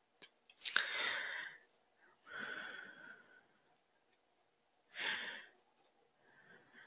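A person breathing close to a microphone: three breaths, each under a second, spaced a couple of seconds apart, with a faint click just before the first.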